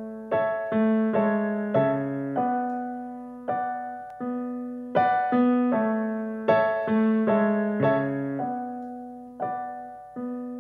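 Solo piano introduction to a song: chords and notes struck one after another in an unhurried rhythm, each ringing and fading before the next.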